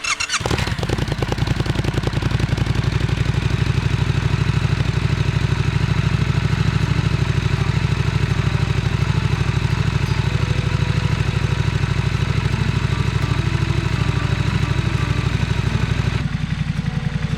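Triumph Scrambler 1200 XE's parallel-twin engine starting and then idling steadily with a fast, even pulse. Its sound thins near the end.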